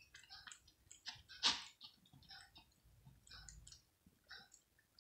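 A cat chewing and licking cooked mackerel in gravy: quick, irregular wet clicking mouth sounds, with one louder click about a second and a half in.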